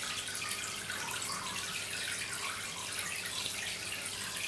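Steady hiss of room background noise with a faint low hum underneath; no distinct clicks or knocks stand out.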